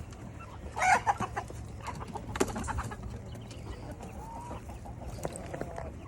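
Young chicken squawking and clucking as it is chased, with the loudest squawks about a second in and a few short knocks among the calls.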